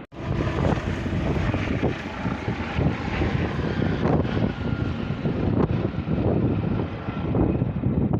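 Helicopter flying close by, its rotor beating steadily and loudly along with the turbine noise.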